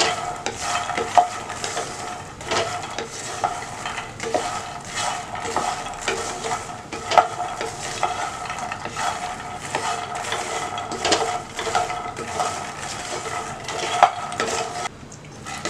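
A wooden spatula stirring puffed lotus seeds (makhana) around a nonstick pan in ghee: irregular scrapes against the pan and light knocks and rustling as the seeds tumble, pausing briefly near the end.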